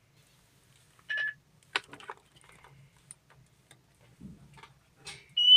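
Short electronic beeps with light clicks and taps between them: one brief beep about a second in, and a louder, higher beep that rises slightly near the end.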